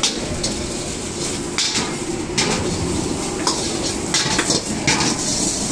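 Clatter of dishes and metal utensils: sharp clinks and scrapes about once a second, at irregular intervals, over a steady din.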